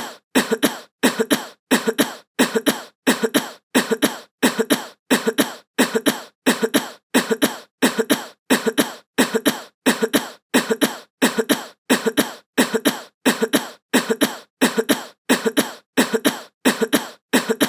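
A person's cough sound effect looped over and over at an even pace, a little under twice a second. Each cough comes in two quick parts, with short silences between.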